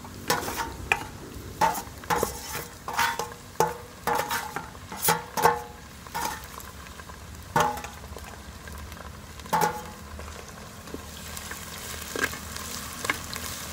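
Dried red chillies, crushed ginger and garlic, and onions sizzling in hot oil in a clay pot while a steel spoon stirs and scrapes. The spoon knocks against the steel plate and the pot rim, each knock ringing briefly; the knocks come often in the first ten seconds, then thin out.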